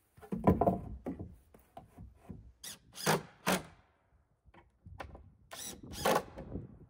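Wooden siding boards being set against an outhouse's wood stud framing and fastened with a cordless drill driving screws: a run of uneven knocks and thumps of wood on wood, with a few sharp clacks.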